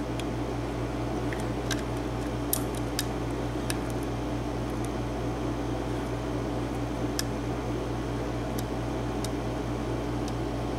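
Small room air conditioner running with a steady hum, with faint, irregular little clicks of a lock pick working the pin stack of a Sargent cylinder lock.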